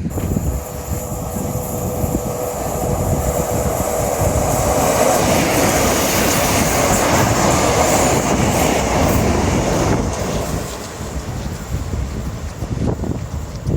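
Passenger train running past on the railway line beside the seawall. It comes in suddenly, is loudest in the middle, then eases off, with a steady whine in the first few seconds.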